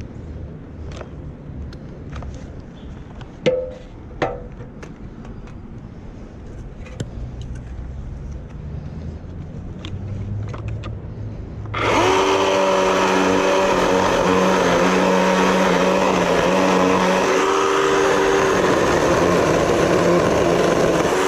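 Ryobi 18V brushless cordless chainsaw starts abruptly a little over halfway through and cuts into a dead conifer limb, the electric motor's whine mixed with the chain chewing wood. Before it starts there is only a low rumble and two sharp knocks.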